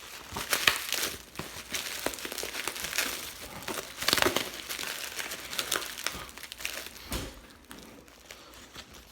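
Bubble wrap and plastic packaging being handled, with irregular crinkling and crackling that thins out near the end.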